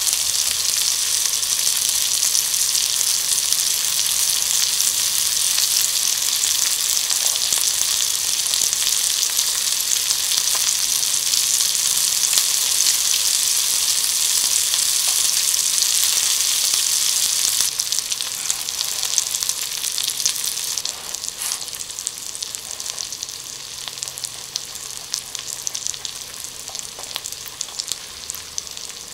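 Asparagus spears and melted cheese sizzling and spitting on a hot grill pan, a steady high hiss. About two-thirds of the way in the sizzle drops noticeably quieter, then drops again a few seconds later, leaving a softer hiss with scattered crackles.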